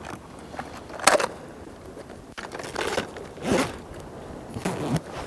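Short scraping, rustling handling noises close to the microphone, four in a few seconds, the loudest about a second in: gear and a plastic lure box being handled and put away.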